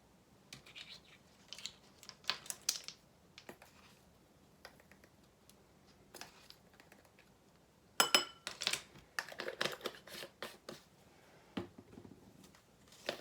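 Measuring spoon and spice jar being handled while chili powder is scooped: scattered light scrapes and taps, with a sharp metallic clink about eight seconds in.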